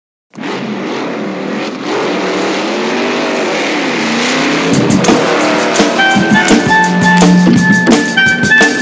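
A car engine revving up and down for about four seconds, then music with horns and drums comes in about five seconds in.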